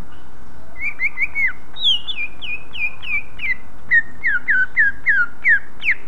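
Male cucak ijo (greater green leafbird) singing: a quick run of short, clear, down-slurred whistles, about three a second, starting about a second in, stepping up in pitch and then down again, and ending on a sharp rising note.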